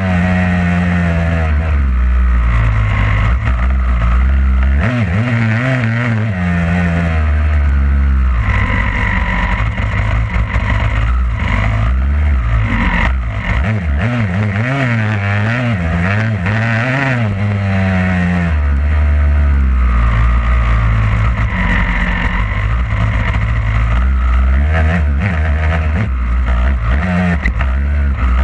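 Two-stroke motocross bike engine heard close up from the bike itself, revving up and dropping back again and again as it is ridden around a dirt track.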